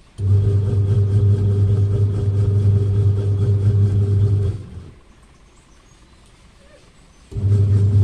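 Washing machine wash motor humming as it drives the refitted pulley and belt that turn the pulsator. It runs down and stops about four and a half seconds in, then starts again near the end, in the stop-and-go of the wash agitation.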